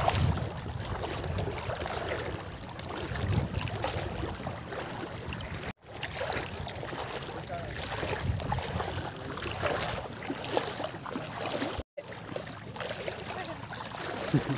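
Wind rumbling on the microphone over shallow seawater, with water sloshing around legs wading through it. The sound drops out briefly twice.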